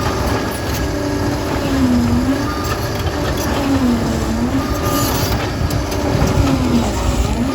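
Liebherr PR 746 crawler dozer working: the diesel engine and drive run with a whine that dips in pitch and recovers about every two seconds, over a steady metallic clatter of the steel tracks.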